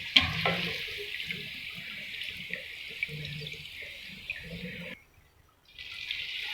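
Puri deep-frying in hot oil: a steady sizzle with small crackles and pops. It cuts out for under a second about five seconds in, then comes back.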